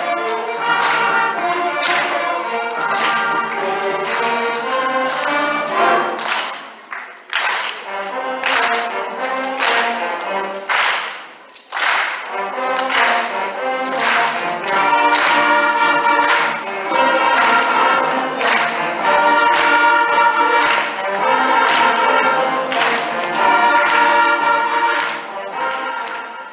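Concert band music: brass with percussion keeping a steady beat, with two brief lulls about seven and twelve seconds in.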